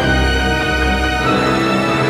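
Background music: a soundtrack-style theme with sustained notes over a pulsing bass.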